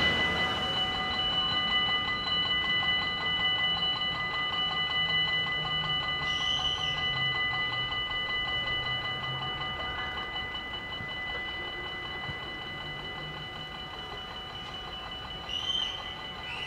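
Dutch level-crossing warning bell ringing steadily while the crossing is closing. Two short, higher squeaks come through it, about six seconds in and again near the end.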